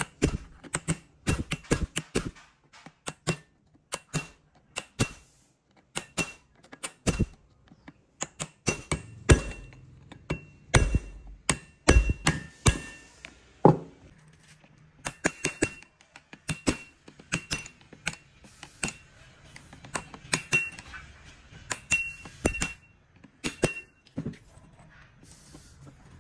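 A hammer striking a steel punch set against a rusted chainsaw clutch, tapping it round to unscrew it from the crankshaft. Many sharp metal strikes come in irregular runs, often with a short ring after them.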